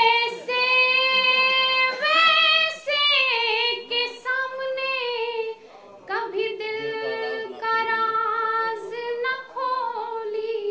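A woman sings a ghazal unaccompanied, in the chanted tarannum style, holding long ornamented notes, with a short break between phrases about six seconds in.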